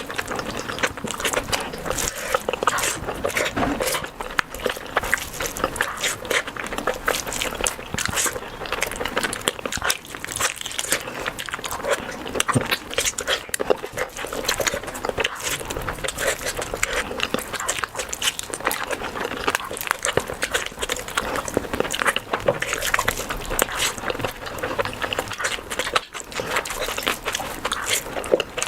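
Close-miked chewing and wet mouth sounds of someone eating rice and curry: a dense, steady run of smacks and small clicks.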